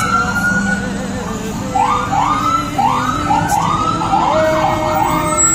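Vehicle siren in a parade sounding a long rising whoop, then a quick run of short rising whoops, about two to three a second.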